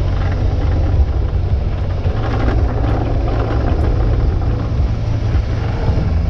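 Suzuki motorcycle engine running at a steady, low pace on the move, with the tyres crunching over a loose gravel track.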